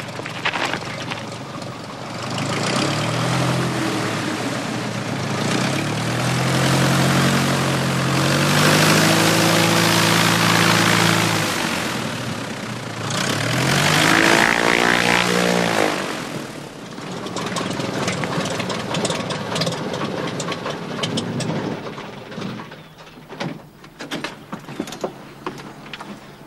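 Single-engine high-wing light aircraft's piston engine and propeller running as the plane taxis in after landing, its pitch rising and falling. About 16 seconds in the engine winds down and is shut off. A few light clicks follow near the end.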